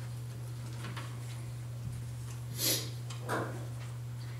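A pause in the speech: a steady low hum, with two brief soft noises about two and a half and three and a half seconds in.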